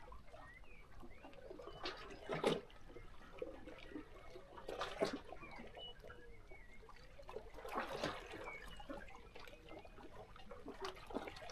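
Small sea waves lapping and splashing against shoreline rocks, three surges a few seconds apart, with small birds chirping faintly in between.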